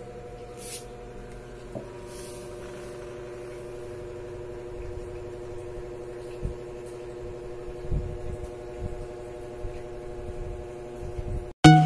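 A steady hum of several held tones, with a few faint knocks, and music cutting in abruptly at the very end.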